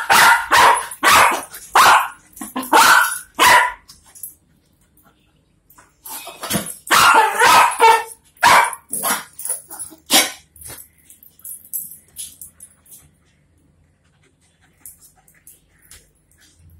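A dog barking in two bouts of short, loud barks: the first in the opening four seconds, the second from about six to ten seconds in.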